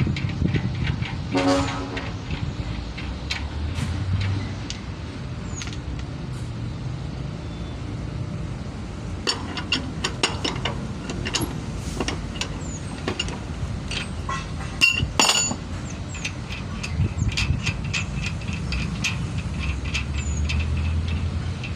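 Scattered metallic clinks and taps of hand tools on a container truck's steel wheel rim as the rear tyre is worked off by hand, thickest midway, over a steady low rumble of traffic. A short pitched hoot sounds about a second and a half in.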